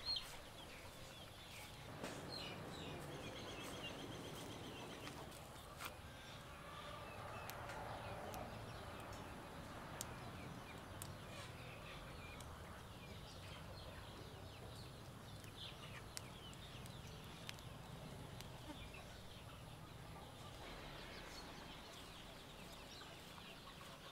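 Chickens clucking faintly over a quiet outdoor background, with a few light clicks scattered through.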